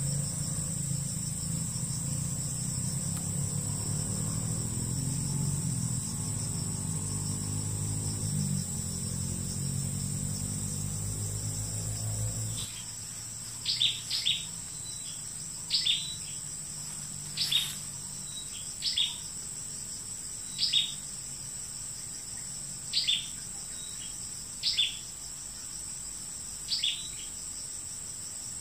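A steady, high-pitched drone of forest insects such as crickets. During the first half a low hum runs underneath and cuts off suddenly. After that a bird gives short, high calls, some in pairs, every second or two, louder than the insects.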